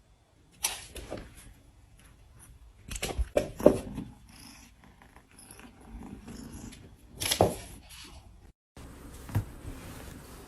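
A domestic cat, heard with several sharp knocks or bumps; the loudest comes about three and a half seconds in.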